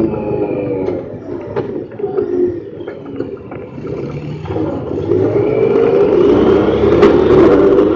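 Honda Pioneer 1000-5 side-by-side's parallel-twin engine running while driving over a dirt trail, with scattered knocks and rattles from the cab. About halfway through the engine gets louder and its note climbs.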